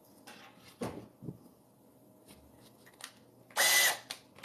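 A few light handling knocks, then near the end a power drill is triggered and spins briefly, about half a second of steady motor whine.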